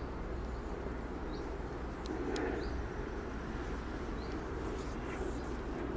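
Steady outdoor background noise with a few faint, short bird chirps and a brief click a little over two seconds in.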